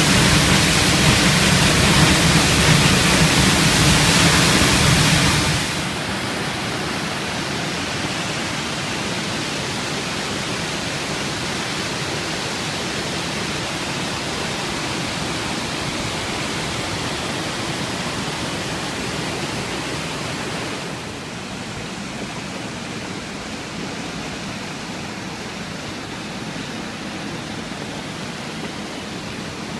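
Waterfalls and fast river water rushing steadily. The first six seconds are very loud, right beside falling water; then the sound drops suddenly to a quieter rush of a fall and its rapids, stepping down once more about twenty seconds in.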